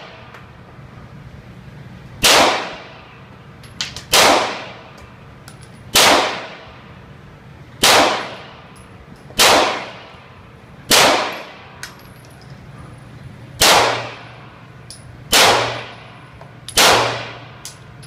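Semi-automatic pistol fired in slow single shots, nine in all, roughly one every one and a half to two seconds. Each shot is followed by a short ringing echo off the walls of the indoor range.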